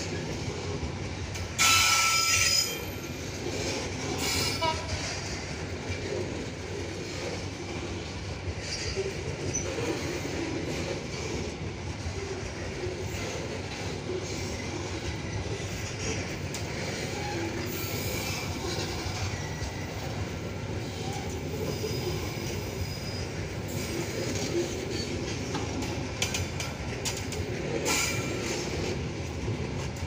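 Long freight train of open-top wagons rolling past steadily, its wheels rumbling on the rails. A brief loud, high-pitched wheel squeal about two seconds in, and a shorter one near the end.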